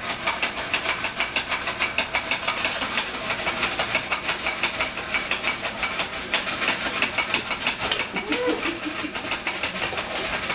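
Popcorn maker running: a steady whirring hiss with dense, rapid crackling clicks. A young child gives a short vocal sound about eight seconds in.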